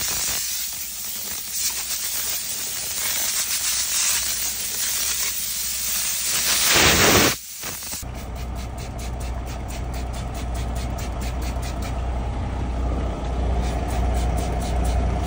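Compressed air hissing steadily from an air blow gun on a coiled air hose, cutting off suddenly about seven seconds in. After that comes a low steady engine hum with a fast run of short sharp spritzes from a trigger spray bottle.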